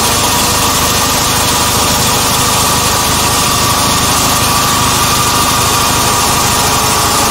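Laboratory motor–alternator set running steadily: a continuous machine hum with a steady high whine over it.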